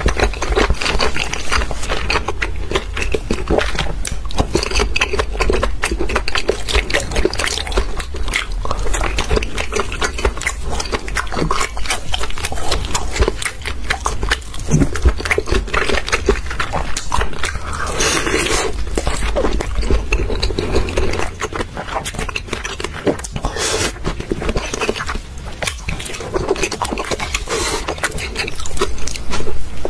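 A person chewing and smacking wet, chewy seafood close to the microphone, with dense, irregular mouth clicks and slurps.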